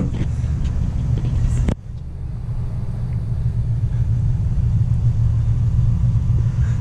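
Steady low rumble of a car on the move, heard from inside the cabin; it drops suddenly about two seconds in and builds back up over the next few seconds.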